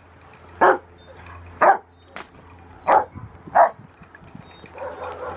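A nine-month-old Rottweiler barking at the protection helper in front of it: four sharp single barks, about a second apart.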